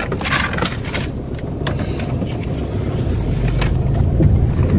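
Car engine running, heard from inside the cabin as a steady low rumble that grows a little louder about three seconds in as the car moves off. A few light clicks are heard over it.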